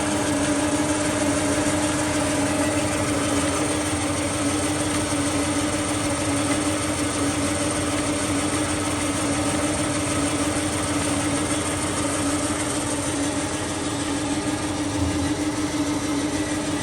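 Jones & Shipman 1300 cylindrical grinder running under power: a steady machine hum with a fainter high whine above it.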